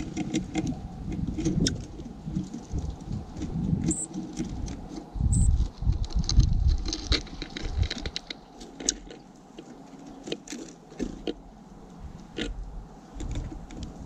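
Small birds, a dark-eyed junco and a house sparrow, pecking and picking through loose seed on a wooden platform feeder right at the microphone: an irregular patter of seed clicks and taps. Low rumbling thumps run under it, loudest about five to six seconds in, and two brief high-pitched notes come near the four- and five-and-a-half-second marks.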